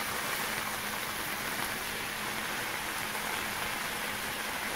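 Chopped vegetables and black beans sizzling in a hot stainless steel pan, a steady even hiss.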